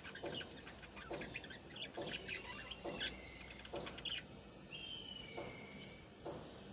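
Budgerigar chicks chirping: a busy run of short, high chirps, then a few longer calls that slide slightly down in pitch near the end.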